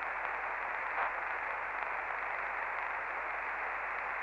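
CB radio receiver hissing with steady static on an open channel, the narrow, tinny hiss of radio audio, with a faint click about a second in.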